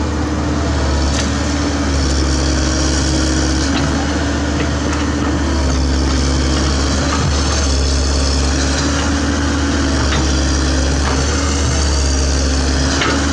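Komatsu PC130F hydraulic excavator's diesel engine running steadily under working load, its pitch shifting a little as the boom and bucket move, with a few short knocks.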